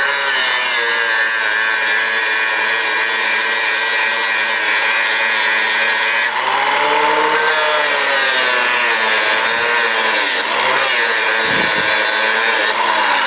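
Handheld angle grinder running, its disc grinding the paint off the hand-truck's painted frame tubing down to bare metal to prepare it for welding. The motor's whine dips in pitch as the disc is pressed into the tube, most clearly about six to eight seconds in, and briefly again near the end.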